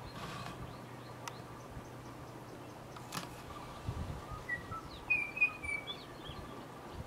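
Small songbird giving a quick run of short, high chirps about two-thirds of the way through, over faint steady outdoor background noise. A single faint click comes about three seconds in.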